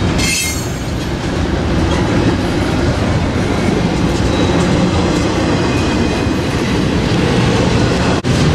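Double-stack intermodal container train rolling past close by, its wheels and cars making a steady loud running noise on the rails. A brief high-pitched squeal comes just after the start.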